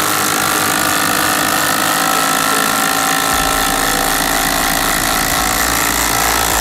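Two Makita cordless impact drivers running together under load, hammering steadily as they drive fasteners side by side. A deeper hum joins in about halfway through.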